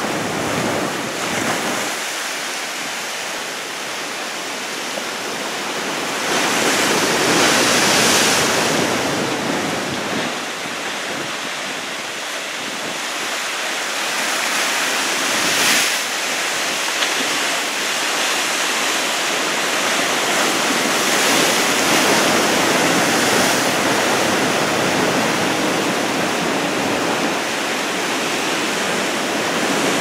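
Heavy typhoon swell breaking and washing over a rocky shore: a continuous wash of surf and whitewater, swelling louder about six seconds in and again around twenty seconds.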